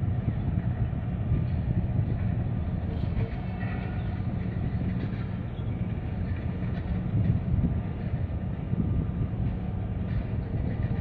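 A steady low rumble, with faint higher squeal-like tones about three to four seconds in.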